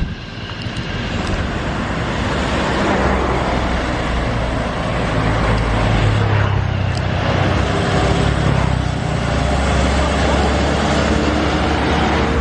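Road traffic on a steep climb: a heavy diesel engine rumbling under load as it passes, loudest about six seconds in, over steady tyre and traffic noise.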